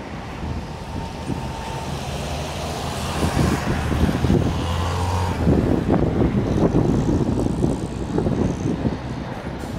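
Trolleybus passing on the street, a steady low hum that ends about halfway through, followed by rougher road noise with crackles.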